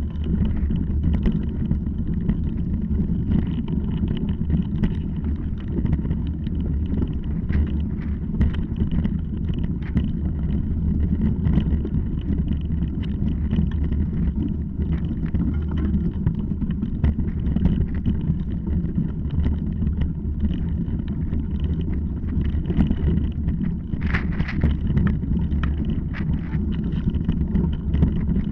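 A steady low rumble of wind and ride vibration on a mounted action camera traveling over a rocky singletrack, with frequent short knocks and rattles from the rough ground.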